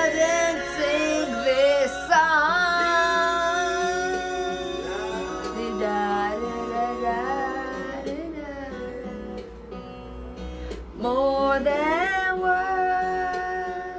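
A woman singing with acoustic guitar accompaniment, holding long notes; the sound sinks away near the end.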